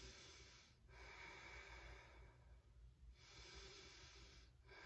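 A woman's faint, slow, deep breathing: about three long breaths in and out, each lasting around a second and a half.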